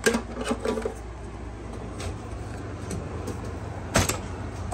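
Steady low hum, with a few light clicks of hand tools being handled in a toolbox drawer near the start and one sharper knock about four seconds in.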